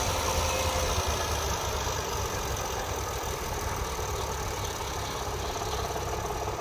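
Farm tractor's diesel engine running steadily under load as it tows a trailer through muddy ruts, growing slightly fainter as it pulls away.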